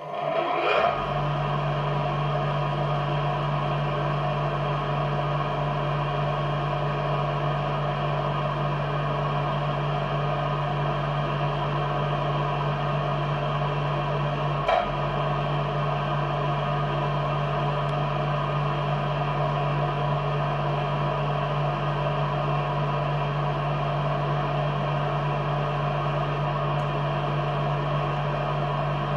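CO2 laser engraving machine starting up: its motors spin up with a rising whine over the first second, then run with a steady hum as it engraves wood. One short click about halfway through.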